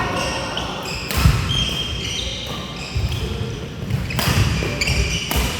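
Badminton rally on an indoor court: a few sharp racket strikes on the shuttlecock, a second or more apart, with shoes squeaking and feet thudding on the court floor.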